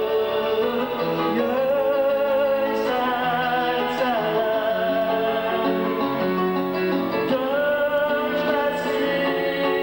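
A man sings long, wavering held notes with an electronic keyboard accompaniment, the notes changing every second or few.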